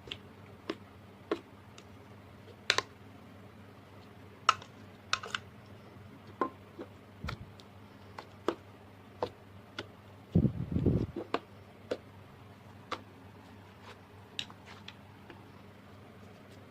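Slime being handled and pressed: scattered sharp clicks and pops, with a short denser run of louder pops about ten seconds in.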